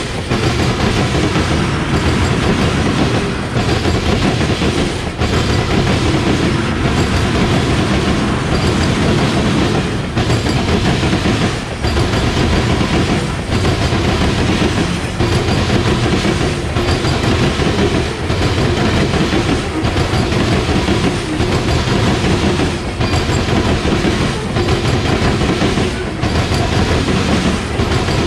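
Freight train cars (tank cars, then covered hoppers) rolling past close by. Steel wheels rumble and rattle on the rails, with clickety-clack over the rail joints and a regular dip in the sound about every one and a half seconds.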